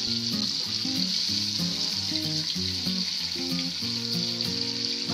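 Onion and green chilli paste sizzling steadily in hot mustard oil in a pan as it is stirred about, with a soft instrumental melody underneath.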